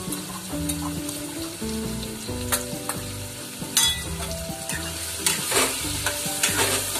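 Onion-tomato masala sizzling in a steel kadhai as it is stirred with a steel spoon. Several sharp scrapes and knocks of the spoon against the pan come in the second half.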